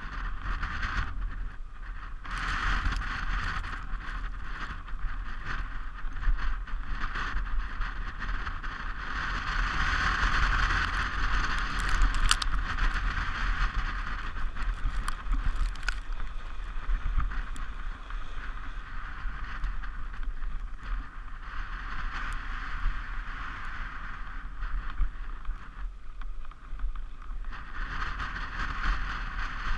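Sport toboggan's runners hissing over packed snow on a downhill run, with wind rumbling on the microphone. The hiss grows louder about ten seconds in, with a few sharp clicks, and drops briefly near the end.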